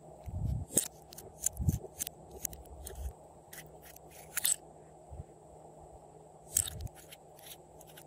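Irregular sharp plastic clicks and taps as lip gloss tubes and their caps are handled and pulled open, with a few soft low knocks among them.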